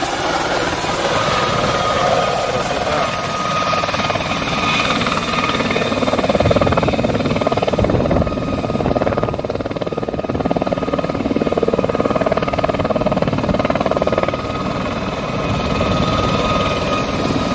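Light turbine helicopter hovering down onto a landing pad and settling: a steady rotor chop under a high, thin turbine whine.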